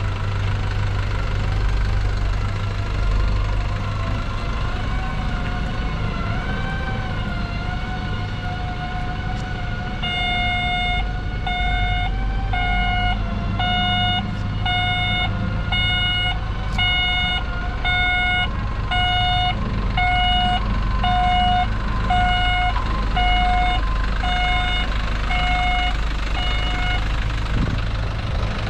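Hyundai HD65 truck's diesel engine running steadily, with a reversing alarm beeping about once a second through most of the second half before stopping near the end. A wavering electronic tone sounds over the engine for several seconds before the beeping starts.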